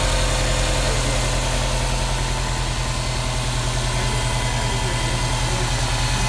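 Subaru WRX STI's turbocharged EJ257 flat-four idling steadily, heard up close in the open engine bay at the accessory belt drive with its new lightweight crank pulley fitted.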